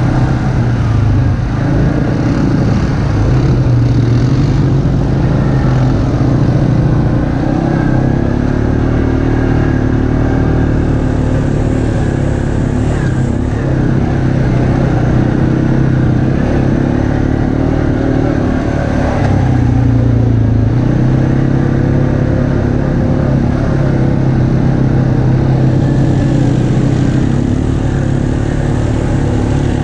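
An ATV engine running steadily while riding a dirt trail. Its note rises and falls a little with the throttle.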